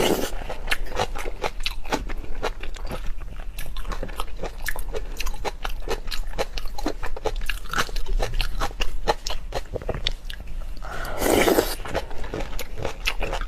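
Close-miked eating of raw marinated shrimp: dense, irregular wet crunching and chewing clicks, with one louder noisy burst about eleven seconds in.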